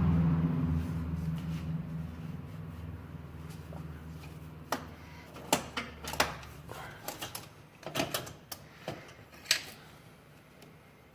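Low hum of the Honda Civic's starter and drivetrain dying away over the first few seconds after the starter is released. The car has a loose flywheel ring gear grinding on the bellhousing. After that come a series of sharp, light clicks and knocks.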